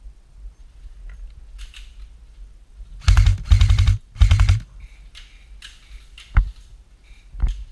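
Airsoft gun firing three quick full-auto bursts of rapid pops about three seconds in, followed by two single sharp clicks.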